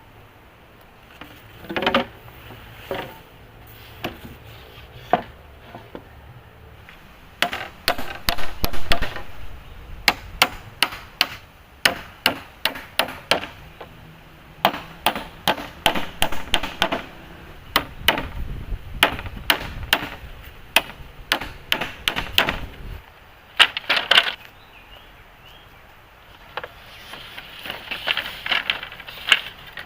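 Wood being struck over and over with a hand tool, in irregular runs of quick, sharp blows separated by short pauses.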